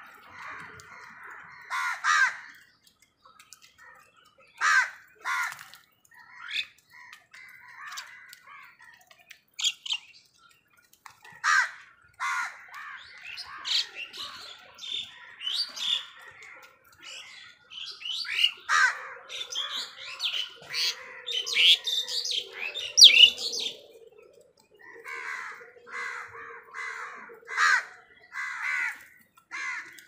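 House crows cawing in short harsh calls at irregular intervals, mixed with the chirping and chattering of mynas, busiest in the middle of the stretch.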